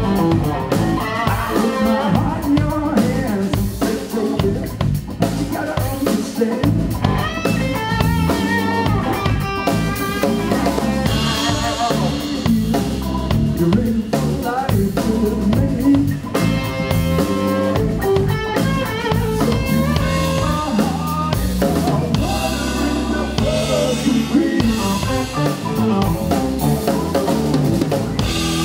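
Live rock band playing loudly on stage: a drum kit with kick and snare driving the beat under electric guitars.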